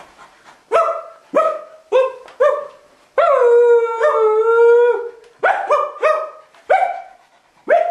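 People imitating a dog: four short barks, then one long howl of about two seconds, then four more barks.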